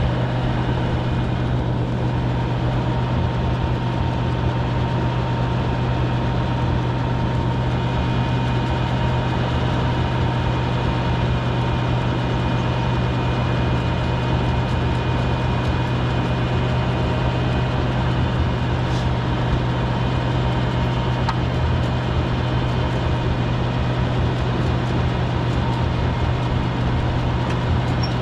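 Oliver Super 77 tractor's six-cylinder engine idling steadily at one even pitch while the tractor stands still.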